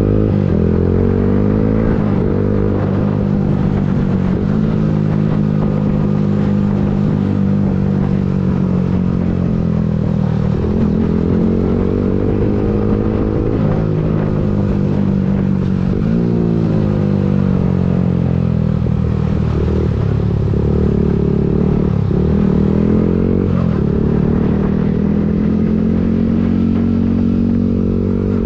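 Yamaha MT-15's 155 cc single-cylinder engine through an Akrapovic full-system exhaust, heard from on board while riding. The engine note climbs and drops back again and again as the bike accelerates and eases off.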